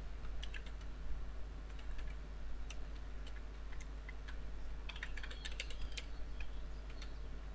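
Computer keyboard typing: irregular key clicks, coming in a quicker run about five seconds in, over a low steady hum.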